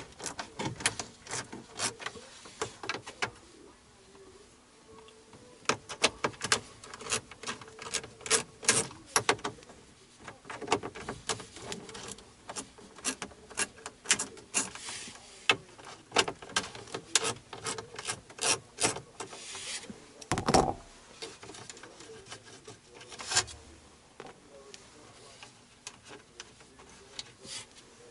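Hand ratchet and socket clicking in quick bursts as the radio's mounting bolts are backed out, with a single dull thump about two-thirds of the way through.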